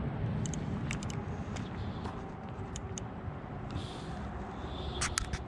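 Spinning rod and reel being worked as a hooked fish is reeled in: scattered sharp clicks over a steady low rumble of handling noise.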